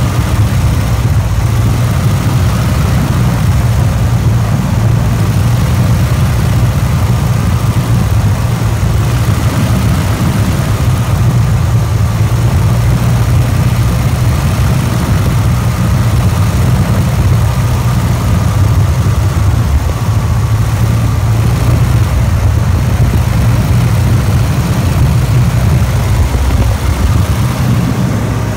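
A biplane's piston engine and propeller droning steadily in cruise flight, with wind rushing past the open airframe.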